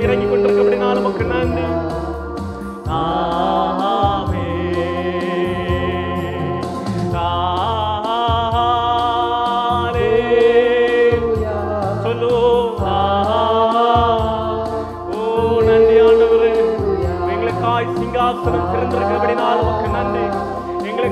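A Christian worship song: a sung melody with vibrato over keyboard and bass accompaniment, the bass moving in held notes.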